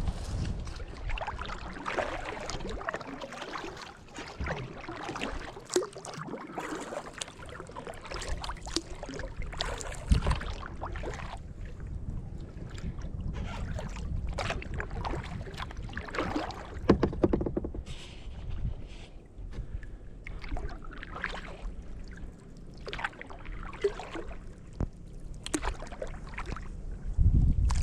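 Kayak paddling: paddle blades dipping and splashing in irregular strokes, with water dripping and lapping against the touring kayak's hull. Gusts of wind hit the microphone near the start and near the end.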